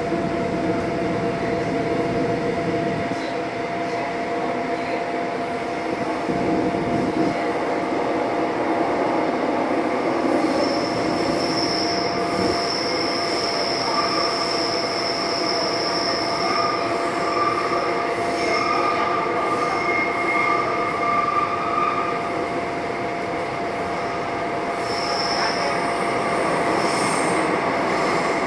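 Seoul Subway Line 9 train running, heard from inside the passenger car: a steady rumble of wheels on rail under a constant hum. High-pitched wheel squeal comes and goes through the middle and briefly again near the end.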